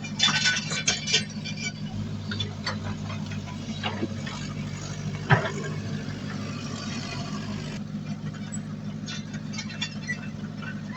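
Diesel engine of heavy earthmoving equipment running steadily, with scattered metallic clanks and knocks. A cluster of loud clanks comes near the start and a single sharp knock about five seconds in.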